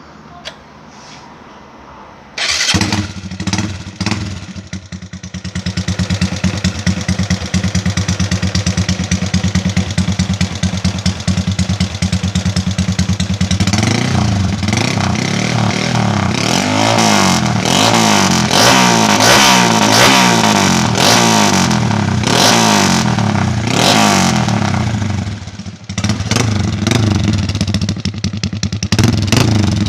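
A Honda Wave 125i's single-cylinder four-stroke engine, bored out with a 56 mm piston and breathing through an aftermarket racing exhaust. It starts about three seconds in and idles steadily. From about halfway it is revved up and down again and again, with a short dip near the end before the revving resumes.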